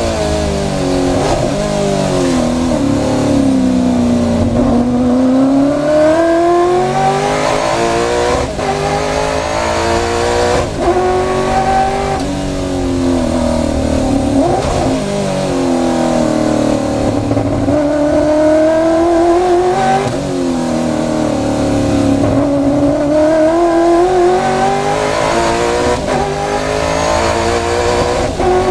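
Race car engine heard from inside the cockpit at racing speed. Its note falls as the car slows into corners and climbs again under acceleration, with sharp breaks in pitch at the gear changes.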